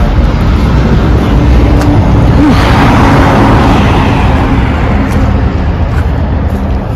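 Road traffic passing: a vehicle goes by, rising to its loudest about three seconds in and then fading, over a steady low rumble.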